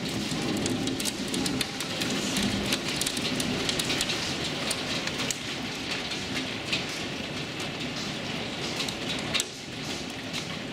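Heavy rain pouring down with a steady rushing noise, peppered with many sharp ticks of drops striking close by.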